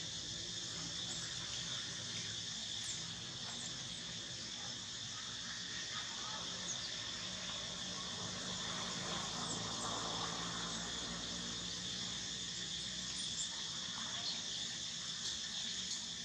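Steady high-pitched chorus of insects in the trees, holding one even note throughout, over a faint low hum.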